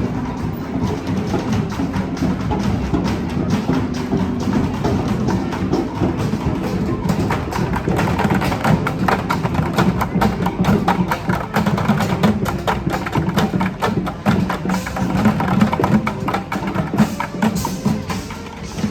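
A street band playing: drums and percussion beat a dense, fast rhythm over sustained pitched instruments, and the percussion grows busier about a third of the way in.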